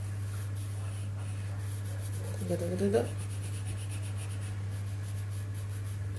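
Graphite pencil scratching on paper in quick repeated strokes, darkening the drawn outline of an eye, over a steady low hum.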